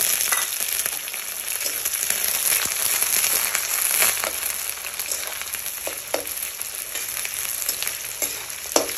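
Sliced onions sizzling as they fry in hot oil with a bay leaf, a steady hiss with a few short knocks of stirring.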